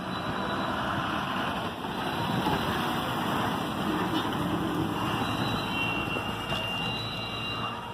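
Ashok Leyland diesel bus engine running close by, a steady engine noise with other bus traffic around it.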